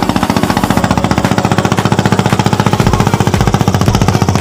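Small wooden motorboat's engine chugging in rapid, even pulses as the boat passes.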